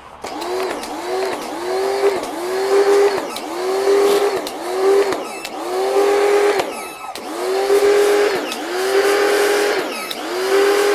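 Muc-Off electric pressure washer running while rinsing a bicycle. Its motor hum sags in pitch and recovers again and again, roughly once a second, over the hiss of the water jet.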